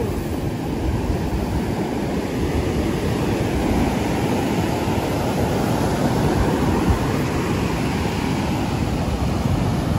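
Ocean surf breaking and washing up the beach as a steady rushing noise, with wind buffeting the microphone.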